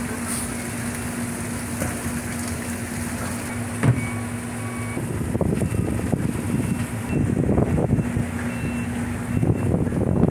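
An engine running steadily with a low hum, a single sharp thump about four seconds in, and rougher rumbling noise through the second half. Faint short high beeps come and go.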